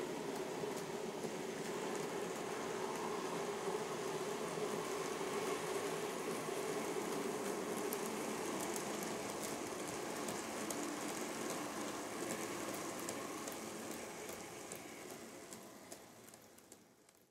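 TOMIX N-gauge DE10 diesel locomotive and container wagons running on model track: a steady rolling rattle of small wheels on rail with light clicks, fading out near the end.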